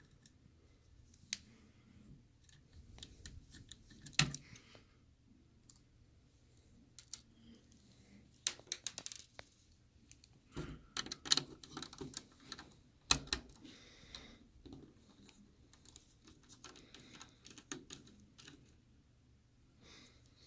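A small Phillips screwdriver backing tiny screws out of a laptop's SD card reader board, heard as faint, irregular light clicks and ticks of metal on metal and plastic, with a few sharper clicks.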